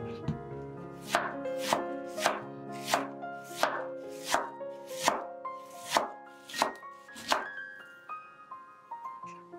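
Cleaver slicing through a quarter head of cabbage onto a bamboo cutting board: about a dozen crisp cuts, one every half second or so, starting a second in and stopping about three-quarters of the way through.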